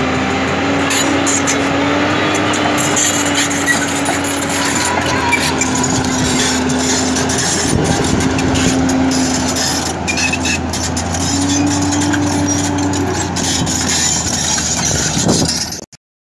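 JCB JS220 LC tracked excavator running, its diesel engine going steadily under a slightly wavering hydraulic whine as the boom works, with scattered knocks and clanks. The sound cuts off suddenly near the end.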